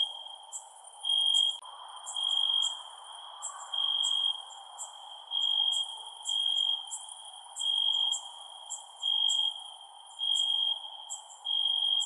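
Crickets chirping at night: a loud, even-pitched trill about half a second long repeats roughly once a second, with shorter, higher chirps from other insects in between, over a faint steady hiss.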